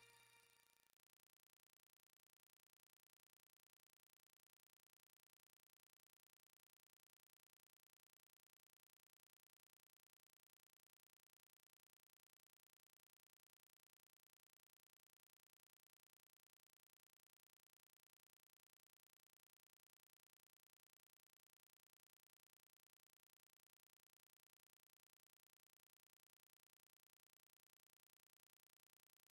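Near silence: the tail of background music fades out within the first second, leaving only faint steady hiss.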